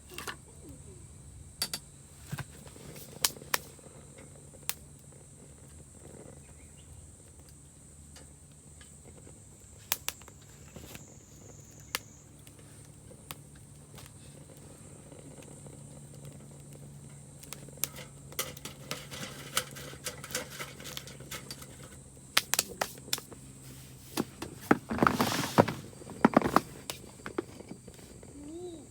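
Steady high-pitched chirring of insects, with scattered sharp clicks and snaps that thicken into a louder burst of clattering about three-quarters of the way through.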